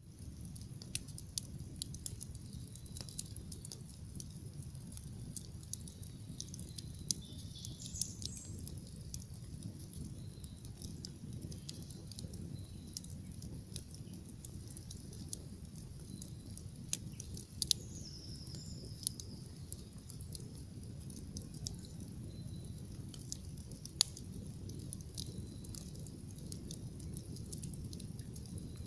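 Wood bonfire crackling, with sharp pops scattered irregularly over a low steady rumble, one louder pop near the end. Birds chirp briefly a few times, around eight seconds in and again around eighteen seconds.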